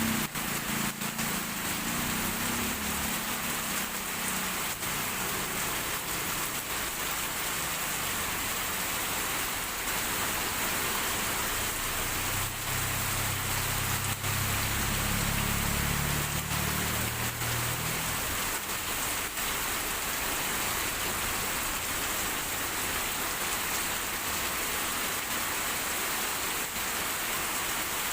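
Heavy rain pouring steadily. A low rumble swells and fades for a few seconds around the middle.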